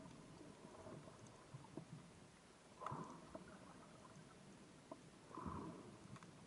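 Faint underwater ambience as heard through an action camera's housing: a low watery rumble with scattered small clicks, and two soft swells of water noise about three and five and a half seconds in.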